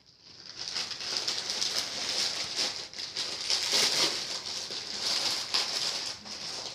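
Packaging being handled: wrapping crinkles and rustles steadily, with many small crackles.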